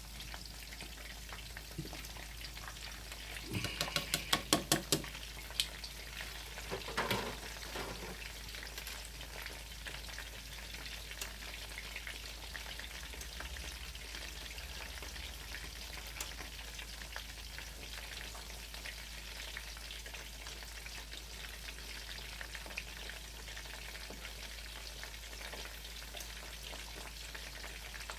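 Cutlets sizzling steadily as they fry in a pan of oil. A quick run of clicks comes about four seconds in, and another knock about seven seconds in.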